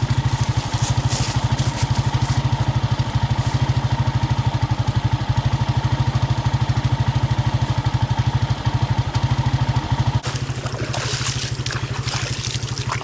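ATV engine running at a steady low speed with an even pulsing beat. About ten seconds in, water splashing joins it.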